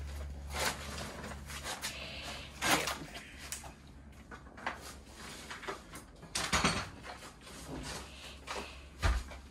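Scattered knocks and scrapes of hard material being handled, with sharper clacks about three, six and a half, and nine seconds in, from work around a broken drain pipe in a trench cut through a concrete slab.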